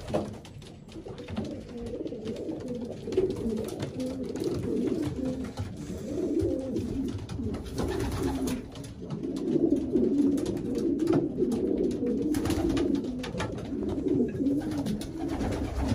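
A flock of racing pigeons cooing continuously, many low warbling coos overlapping, with scattered short clicks and knocks. The sound is heard inside a small wooden loft.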